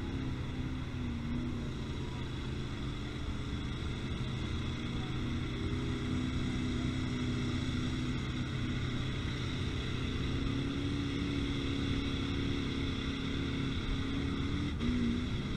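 Vehicle engines running with a steady drone, their pitch slowly rising and falling as they rev.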